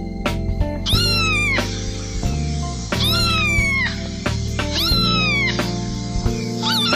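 A cat meowing: three drawn-out meows about two seconds apart, each falling in pitch, and a fourth starting near the end, over background music.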